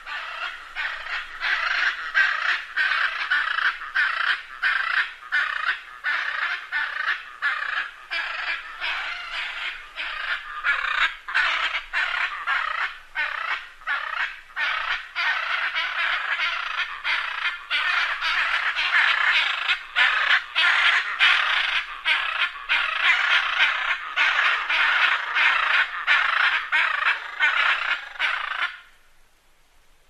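Macaws squawking: a dense run of harsh, overlapping calls, several a second, that stops about a second before the end.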